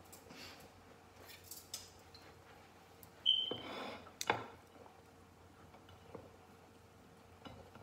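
Small kitchen handling noises at the worktop: a few soft clicks and taps, then a brief high squeak with about a second of rustling a little over three seconds in, and a sharp click just after it.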